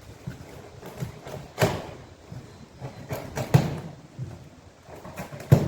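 A run of sharp knocks and thuds from a delivered package being handled and unpacked, three of them louder than the rest.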